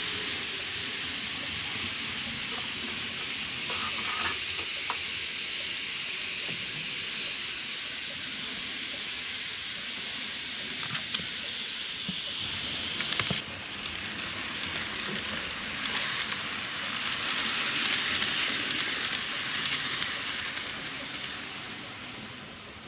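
N-gauge model trains running on KATO Unitrack, giving a steady high-pitched hiss and whir from their small motors and wheels, with a few light clicks. The sound drops suddenly about thirteen seconds in, then swells as a train passes close and fades near the end.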